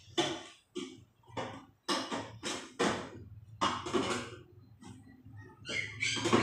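A dozen or so sharp knocks and clatters at irregular intervals from the metal casing and parts of a window-type air conditioner being handled, over a low steady hum.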